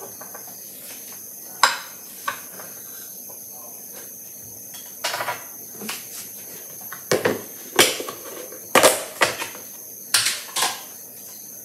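Irregular sharp clicks and knocks of a plastic food container and its lid being handled on a kitchen counter, over a steady background hiss with a faint high whine.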